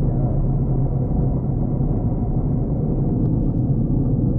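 Steady low rumble inside the cockpit of a Pipistrel Velis Electro on its landing roll along the runway, with the electric motor at idle.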